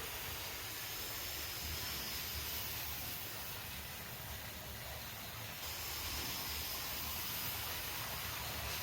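Hornby model Jinty tank locomotive running around the track: a steady whir and hiss from its small electric motor and wheels, with a low rumble.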